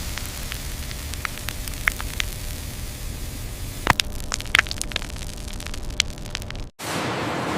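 Factory ambience: a steady low machine hum with scattered crackles and clicks. Near the end it cuts out briefly and gives way to an even hiss.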